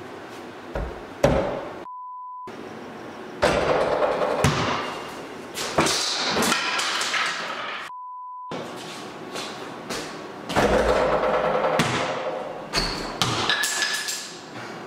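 Knocks and thuds, then loud clattering and rattling. Twice the sound cuts out for a steady test-tone beep of about half a second.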